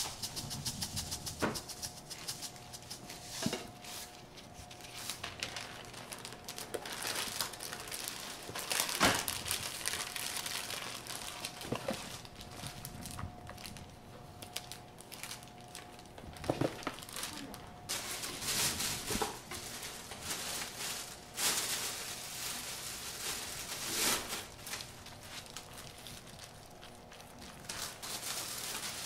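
Kraft paper rustling and crinkling as a gimbap roll is wrapped by hand, with scattered sharp taps and clicks on the counter. A faint steady tone runs underneath.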